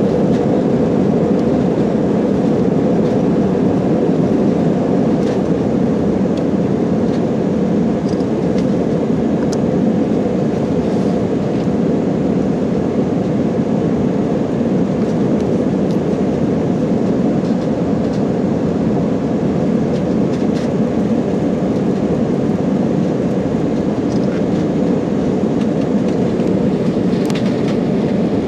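Airliner cabin noise: a steady drone of jet engines and rushing air heard from inside the passenger cabin in flight.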